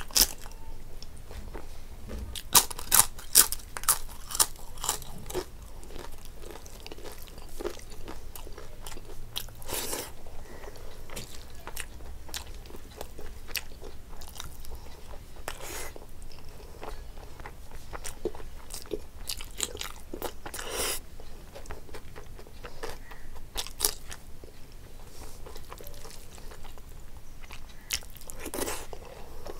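Close-miked eating: crisp papad crunched in loud bites, the sharpest a few seconds in, followed by steady chewing and wet mouth sounds of rice and curry eaten by hand, with a few louder clicks.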